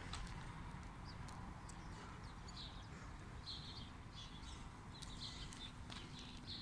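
Small birds chirping: short high chirps repeated in clusters from about two seconds in, over a low steady rumble.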